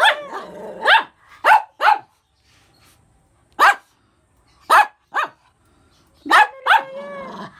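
Small white long-haired dog barking: about nine short, high-pitched barks in irregular bunches of two or three, a jealous dog demanding attention while another dog is held.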